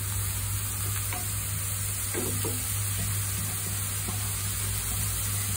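Chopped button mushrooms sizzling in hot oil in a frying pan with browned onion and garlic, with a few light scrapes of a wooden spatula stirring them. A steady low hum runs underneath.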